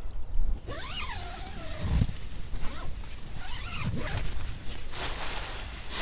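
The tent's nylon inner door is unzipped and handled, with fabric rustling and a few soft knocks as a person crawls into the tent. An animal call that glides up and down sounds twice in the background.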